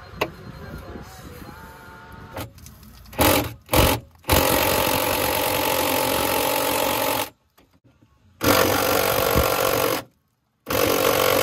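Impact wrench run in separate bursts while undoing the rear axle and suspension bolts of a BMW E36: two short blips about three seconds in, then a run of about three seconds and two shorter runs, each starting and stopping abruptly.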